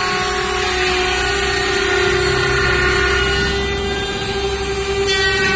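Mini automatic edge banding machine running, its motors giving a steady whine while a panel feeds through, with a low rumble that swells for a moment midway.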